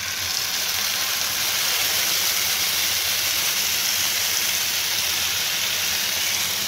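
Marinated chicken pieces poured into a hot frying pan, sizzling loudly and steadily in the oil.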